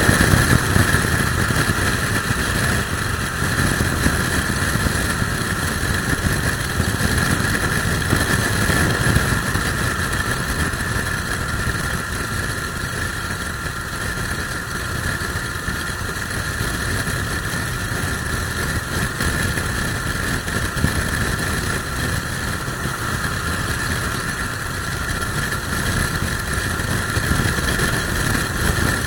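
Motorcycle running at steady speed on the road, its engine droning under heavy wind noise buffeting the microphone in a strong crosswind.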